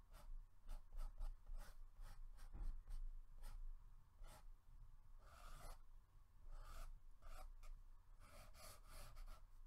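Water-reactive pen scratching across mixed-media paper in short, repeated strokes as hair lines are sketched and darkened. The strokes come faster near the end.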